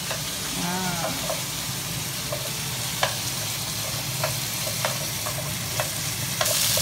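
Food frying in a pan with a steady sizzling hiss, broken by occasional light clicks of a utensil against the pan; the sizzle grows louder near the end.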